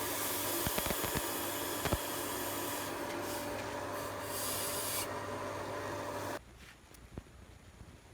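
Steel being ground on a powered grinder: a steady hissing rasp over a motor hum, which stops suddenly about six seconds in, leaving faint taps.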